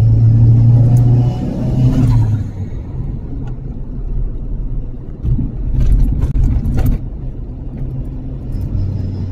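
Audi 1.8-litre turbocharged four-cylinder engine in a Mazda RX-8 body, heard from inside the cabin, pulling with a strong steady note, then easing off about two and a half seconds in so that road and tyre noise take over. Two short sharp sounds come around six and seven seconds in, and the engine note builds again near the end.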